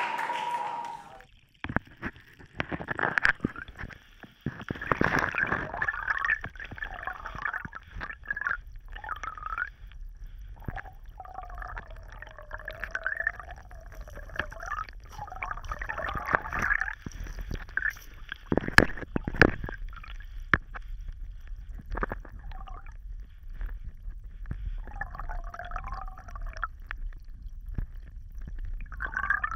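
Creek water gurgling and dripping, with scattered sharp knocks, the loudest about 19 seconds in, over a steady low hum.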